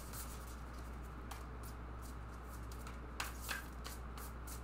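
A deck of tarot cards being shuffled overhand by hand: a run of soft, quick card clicks, about three a second, over a steady low hum.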